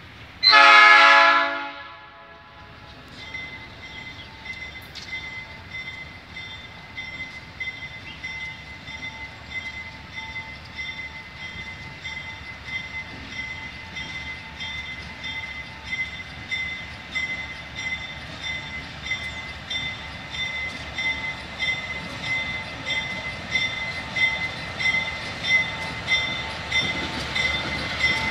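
A diesel locomotive horn sounds one blast about half a second in, the loudest sound here, as a triple-headed MRS freight train of three diesel-electric locomotives approaches. After it a steady high-pitched ringing with a regular pulse under a second apart grows louder as the train nears, with the locomotives' engine rumble rising near the end.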